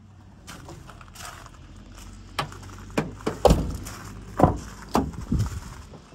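A run of sharp clunks and clicks from the truck's crew-cab doors and latches, the loudest about halfway through. Near the end the rear door handle is pulled and the latch releases as the rear crew-cab door swings open.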